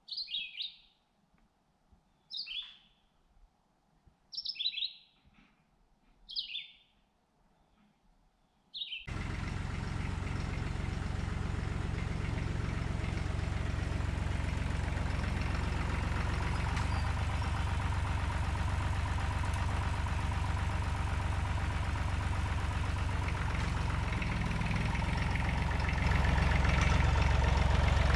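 A bird gives five short descending chirps about two seconds apart, then about nine seconds in a small red Massey Ferguson tractor's engine starts sounding, running steadily, a little louder near the end.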